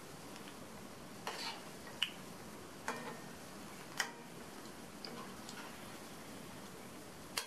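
Radish balls deep-frying in hot oil in a kadai, a faint steady sizzle, with a few light clicks of a metal slotted spoon against the pan as the balls are turned.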